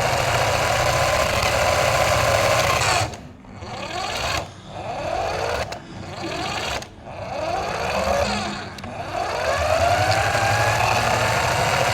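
Electric motor of a radio-controlled car whining as it is throttled: the pitch rises and falls, and the motor briefly lets off about four or five times in the middle before running on steadily.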